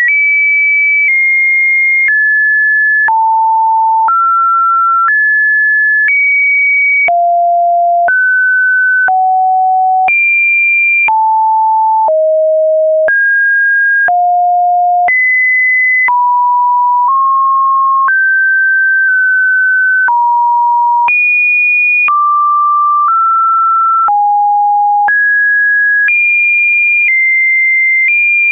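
Electronically generated test tones: a series of pure sine tones, one per second, each at a different pitch, jumping up and down between mid and high pitches in no set order. There is a faint click at each change.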